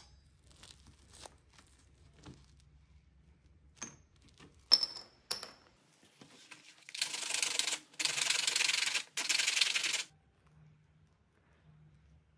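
A few sharp clicks and taps of small plastic discs being handled on a cutting mat, then three rasping strokes of about a second each as a disc is rubbed across a sheet of sandpaper.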